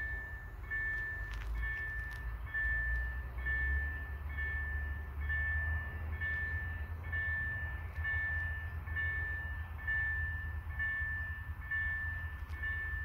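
Railway level-crossing warning bell ringing, a high electronic ding repeating at an even pace, the signal that a train is approaching and road traffic must stop. Low wind rumble on the microphone underneath.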